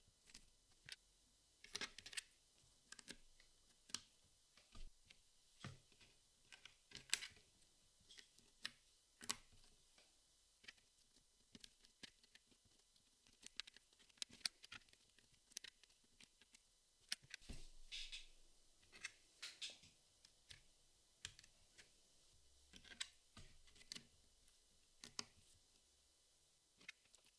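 Jigsaw puzzle pieces being handled and set down: irregular soft clicks and taps, with a few brief rustles as pieces are sorted.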